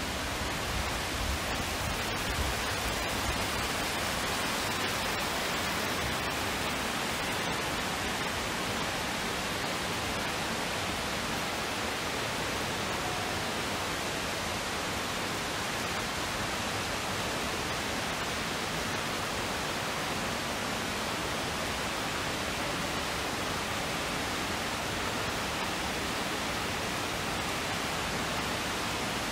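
Steady, even rushing of a large indoor waterfall, a constant wash of falling water with no breaks.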